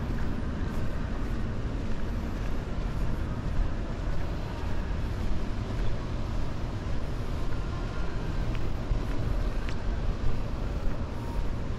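Wind buffeting the microphone: a steady low rumble that rises and falls, with two faint brief high sounds near the end.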